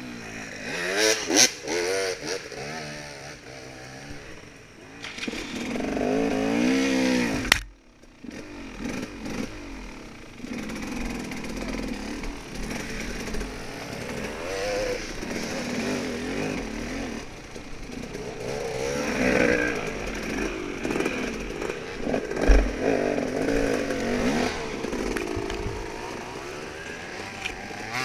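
Off-road dirt bike engine running and revving up and down as it is ridden, its pitch rising and falling with the throttle. The sound breaks off sharply about seven and a half seconds in, then the engine carries on.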